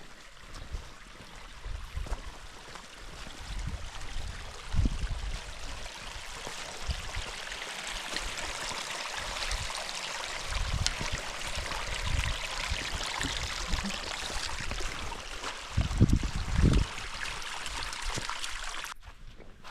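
A small woodland stream running, growing louder towards the middle and cutting off suddenly near the end, with a few footsteps thudding on the trail.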